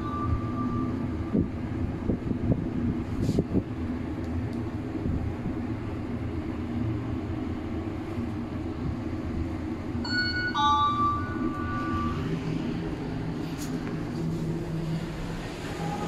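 Passenger lift car travelling down, a steady low hum and rumble of the ride in the car. A short chime of several notes sounds about ten seconds in as the lift arrives at the floor.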